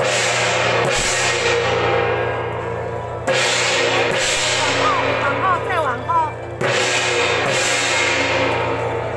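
Temple procession percussion of gongs and cymbals crashing about every two to three seconds, each crash ringing on and dying away before the next.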